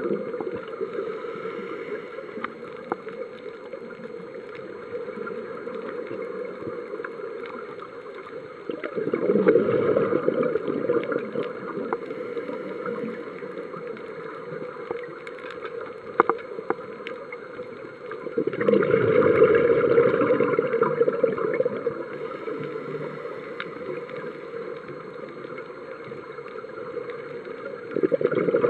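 Scuba diver's exhaled bubbles rushing out of the regulator in three bursts about nine seconds apart, each lasting two to three seconds, with a low steady hiss and a few faint clicks in between.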